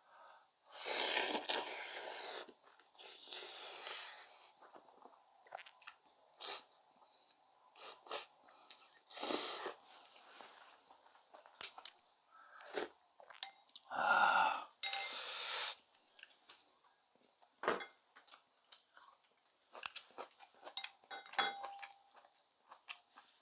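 Close-miked eating sounds of a person chewing, biting and crunching food, with many short clicks. Several longer noisy sounds stand out, the loudest about a second in and again about fourteen seconds in.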